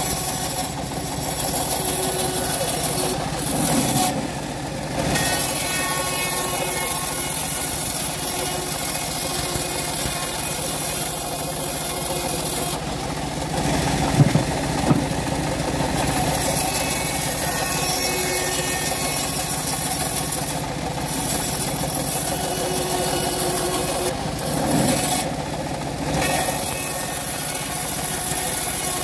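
Homemade bandsaw mill running steadily as its band blade rips a wooden board lengthwise. The machine noise swells briefly a few times as the board is worked through the cut.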